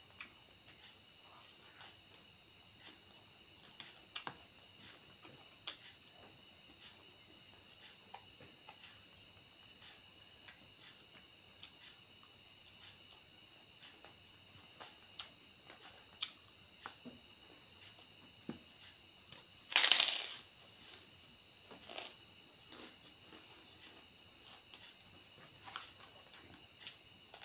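Crickets chirring steadily, with scattered soft clicks and crunches from chewing raw mango leaves and handling food, and one loud brief noise about twenty seconds in.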